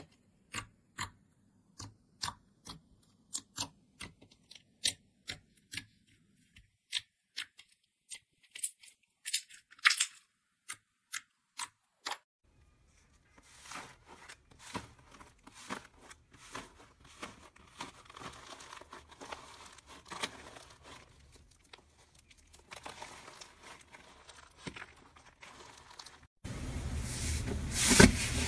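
Slime being handled for ASMR. It opens with crisp single clicks, about two a second. After a short pause comes denser crackling and crunching with clicks. Near the end a louder passage starts with a low hum under it.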